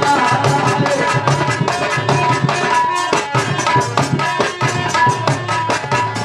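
Instrumental interlude of Indian folk music: hand drums playing a quick, even rhythm under steady held notes from a melody instrument, with no singing.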